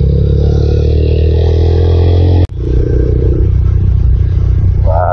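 Motorcycle running on the road, a loud, steady low drone, broken off abruptly for an instant about halfway through.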